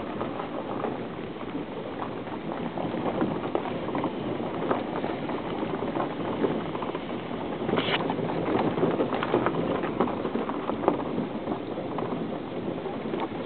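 Road noise inside a vehicle driving slowly over a rough gravel and dirt track: tyres crunching on loose stones, with many small knocks and jolts and a brief sharper noise about eight seconds in.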